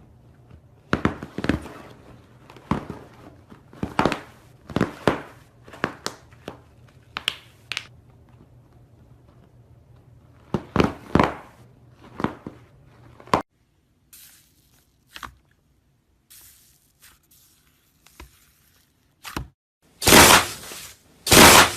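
Slime being squeezed and poked by hand, giving an irregular series of short, sharp squelching pops. The two loudest come near the end.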